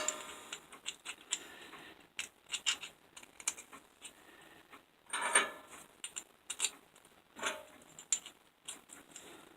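Small cut metal hinge pieces and round rod being handled, clinking and tapping against each other in a series of light knocks, the loudest about five seconds in.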